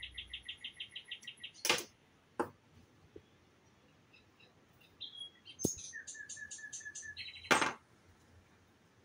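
A small bird chirping in quick runs of repeated high notes, about six a second, once at the start and again from about five seconds in. Two loud, very short sharp noises stand out, one about two seconds in and one near the end.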